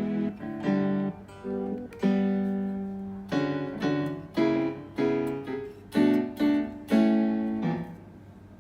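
Roland GR-20 guitar synthesizer playing a plucked, guitar-like tone: a run of picked chords and single notes, each ringing and decaying, dying away near the end. Recorded on a phone.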